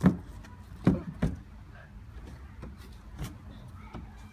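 Knocks and scuffs of a child's hands, feet and body against a painted statue as he climbs onto it. There is a sharp thump right at the start and two more about a second in, then lighter taps and rubbing.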